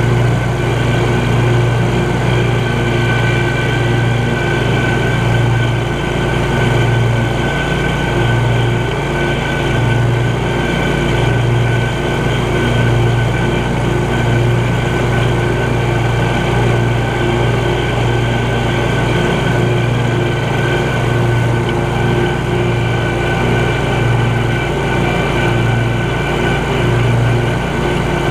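Scag Cheetah 52-inch zero-turn mower running steadily while mowing: a loud, deep engine drone with a slow throb and a thin steady high whine over it.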